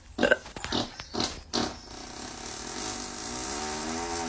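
A horse lying in straw makes a series of short snorting, snore-like grunts. From about three seconds in, a steady low droning tone takes over.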